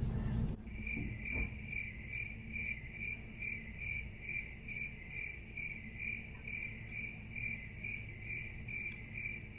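Cricket chirping in an even, high-pitched pulse about three times a second, starting abruptly about half a second in: the stock crickets sound effect laid in for an awkward silence.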